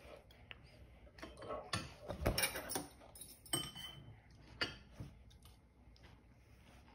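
Cutlery and dishes clinking and clattering: a quick cluster of light clinks about two seconds in, then single ones a little later.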